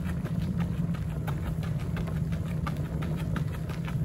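A runner's footsteps crunching on a gravel path, nearly three evenly spaced steps a second, over a steady low rumble.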